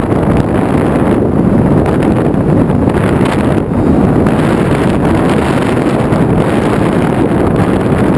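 Loud, steady wind noise buffeting the microphone: a low rushing roar with no clear motor tone.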